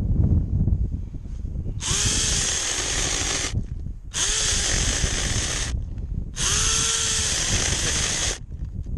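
Battery-powered Drill Pro mini chainsaw running in three short bursts of about two seconds each. In each burst the motor whine rises as it spins up and falls as it winds down, under the hiss of the chain.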